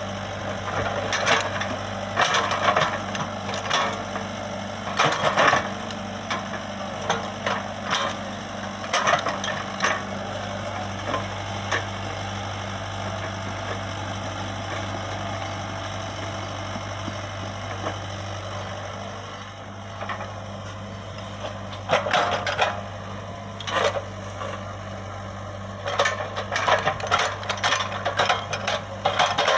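Komatsu PC75UU excavator's diesel engine running steadily, with repeated sharp metallic clanks and rattles over it. The clanking is busiest in the first ten seconds, drops away to the steady engine hum through the middle, and picks up again after about twenty-two seconds.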